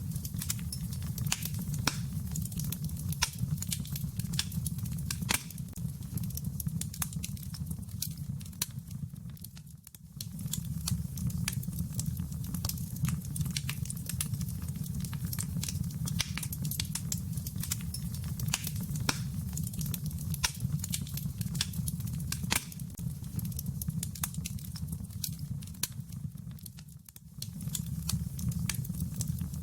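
Fireplace wood fire crackling: scattered sharp pops and snaps over a steady low rumble of flames, dipping briefly twice.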